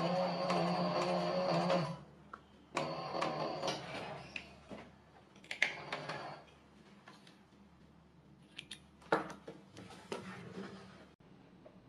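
Anysew AS341 cylinder-bed sewing machine stitching leather with a steady hum for about two seconds, then stopping. After that come scattered clicks and rustling as the leather and thread are handled.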